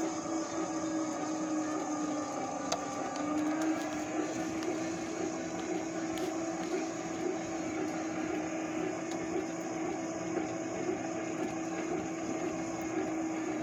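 Electric motorized shopping cart's drive motor running with a steady whine as the cart rolls along.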